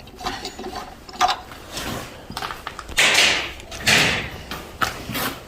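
Metal hand-tool work on a pulley puller as its bolt is screwed out: scattered clicks and clinks, with two longer scraping strokes about three and four seconds in.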